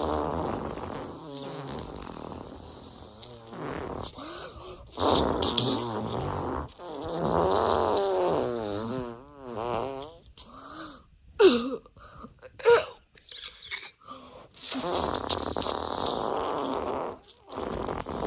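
A string of fart noises, one after another: several drawn-out ones with a buzzing pitch that wavers up and down, a couple of short blurts a little past the middle, and another long one near the end.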